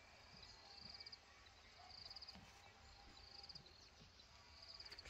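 Faint insect trills in a field: short runs of rapid high-pitched pulses, each about half a second long, repeating roughly every second and a half, over a low steady rumble.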